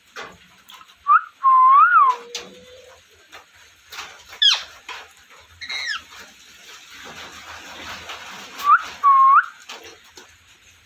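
Pet parrot whistling and chirping: short looping whistles about a second in and again near the end, a held lower note after two seconds, and two sharp falling calls in the middle.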